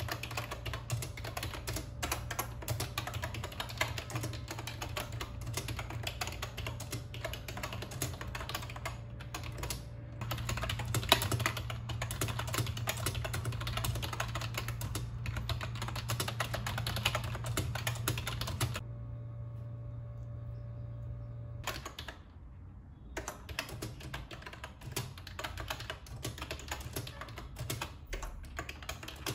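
Rapid typing on a YUNZII B303 retro typewriter-style membrane keyboard with round keycaps, a dense stream of key presses. It stops for about three seconds roughly two-thirds of the way through, then resumes.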